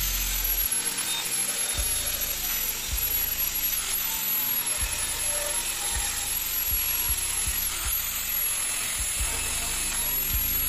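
Angle grinder with an abrasive cut-off disc cutting through a flat steel bar: a steady high whine over a harsh grinding hiss. The motor's pitch dips briefly twice as the disc bites into the steel.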